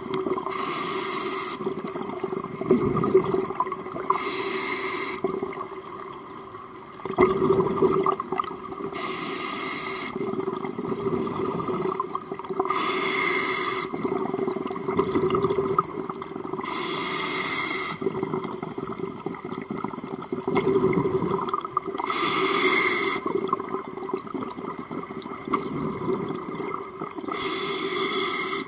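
Scuba breathing through a regulator underwater: a burst of exhaled bubbles rushing out about every four to five seconds, seven times, with quieter breathing noise between the bursts.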